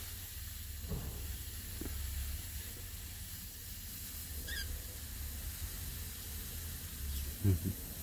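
Steady hiss of a spray nozzle misting water over a cockatiel in its wire cage. A short, high bird chirp comes about halfway through, and a brief low voice sounds near the end.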